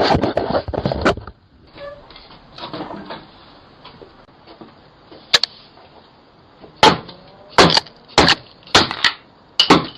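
A run of about seven sharp bangs and knocks, starting about five seconds in and quickening toward the end, picked up through a Ring doorbell camera's microphone, with faint knocks and rustles before them.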